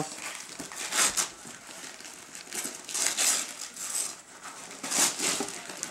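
Gift-wrapping paper crinkling and rustling in several irregular bursts as a present is unwrapped and its cardboard box handled.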